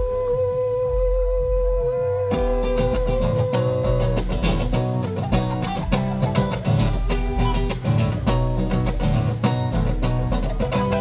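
Live rock band playing. A long held note sits over the bass, then a little over two seconds in the drum kit comes in with cymbals and steady drum hits under the guitars.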